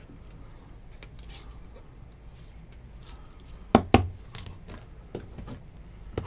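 Two sharp plastic clacks about four seconds in, as rigid card holders are set down on a table stack, followed by a few lighter handling taps over a low steady room hum.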